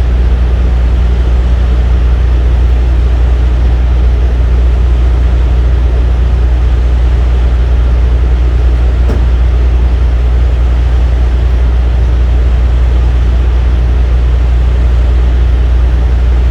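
Steady, loud low drone of a running machine, with an even hum that does not change.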